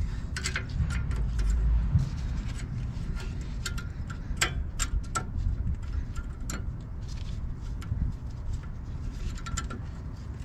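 Scattered metallic clicks and taps as brake pads are handled and worked into the caliper bracket's pad clips, with a low rumble through the first two seconds.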